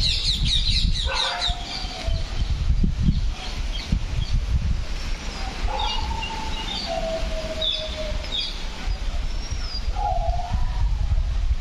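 Birds calling: a quick run of high chirps at the start, then a few longer, lower calls that slide down in pitch, over a steady low rumble of wind on the microphone.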